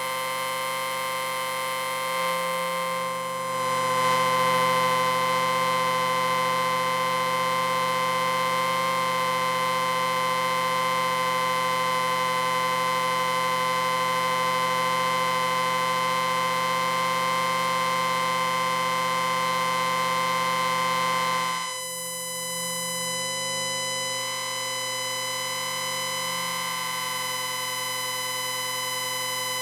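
Sci-fi "electric ring" sound effect: a long, sustained electronic ringing drone made of many steady tones sounding together. About 22 seconds in it dips slightly in level and some of its tones change.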